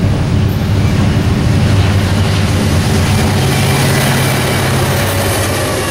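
Norfolk Southern diesel locomotives passing close by, their engines running loudly with a steady low drone and the clatter of wheels on the rails.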